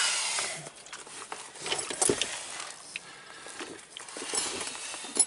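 Scattered knocks, clicks and scrapes as a car battery is handled and lowered into its tray, the plastic case bumping against the surrounding panels, the loudest knock about two seconds in.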